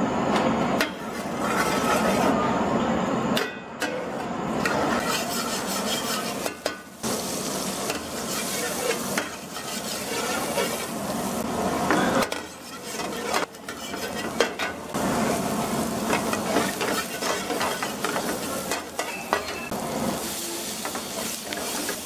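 Hot oil sizzling in a steel frying pan as chopped vegetables fry, with a steel ladle stirring and scraping against the pan in scattered clicks and clinks. The sizzle is loudest in the first few seconds.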